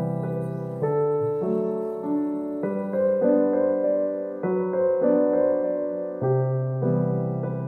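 Background music: a slow piano tune, its notes and chords changing about once a second.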